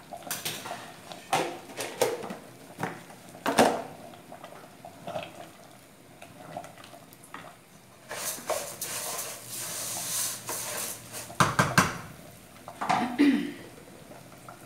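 Kitchen clatter: a wooden spoon knocking and scraping as rice is stirred in an aluminium pot, with pots, a plastic container and a lid being set down. A steady hiss runs for a few seconds in the middle, followed by a burst of loud knocks and a short scrape near the end.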